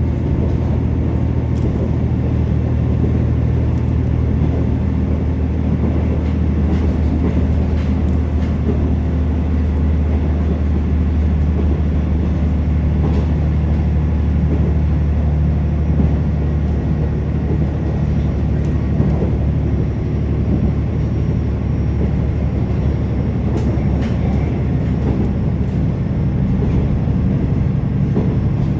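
Inside a KiHa 47 diesel railcar under way: the steady low drone of the underfloor diesel engine mixed with wheels rolling on the rails, with scattered faint clicks. The engine's note shifts about halfway through.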